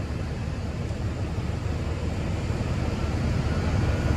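Diesel engine of a wheel loader with fork attachment running close by as it lowers a load, a steady low rumble that grows slightly louder. A faint steady whine comes in near the end.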